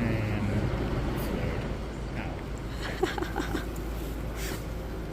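Shop ambience: a steady low hum with faint distant voices and a few light clicks about three seconds in.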